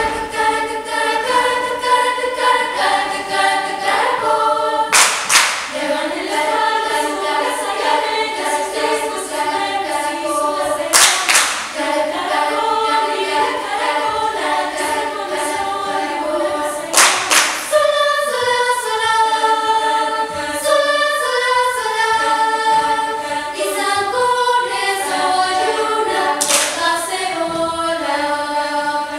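Youth choir singing in several voice parts, apparently unaccompanied. A sharp clap-like hit sounds about every six seconds.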